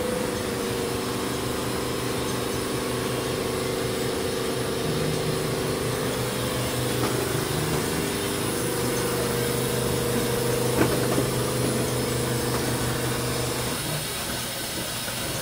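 Steady idling hum of the ride's simulated subway car waiting in the station, a low drone with a higher hum over it. There is a faint click about eleven seconds in, and the lowest part of the drone drops out near the end.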